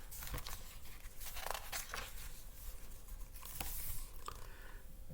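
Soft paper rustling with a few light clicks as a picture book's page is handled and turned.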